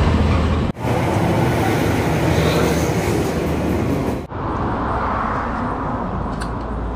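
Roadside traffic noise: a steady rumble of passing vehicles and engines. It cuts out abruptly twice, about a second in and again a little past the middle, and is softer and duller after the second break.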